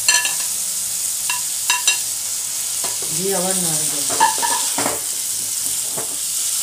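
Boiled green jackfruit pieces sizzling in hot mustard oil and spice paste in a kadai, with a steady frying hiss. A metal spatula, and at first the plate, clink sharply against the pan several times as the pieces are stirred.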